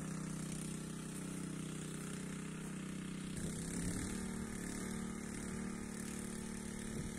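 Small portable petrol-engine water pump running steadily at an even speed while pumping water through the hose.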